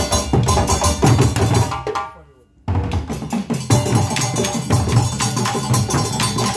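West African drum ensemble of djembes with bass drums playing a fast, dense rhythm. About two seconds in the drumming breaks off and rings out, then comes back in less than a second later.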